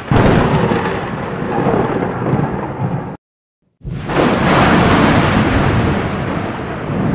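Thunderstorm: a loud thunderclap breaks right at the start and rolls on with rain. It cuts off to total silence for about half a second a little past three seconds in, then a second thunder roll comes in loud and rumbles on with rain.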